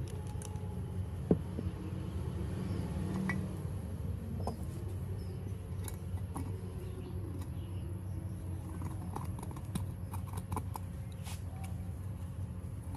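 Scattered light clicks and taps of parts being handled, with one sharper click about a second in, over a steady low hum.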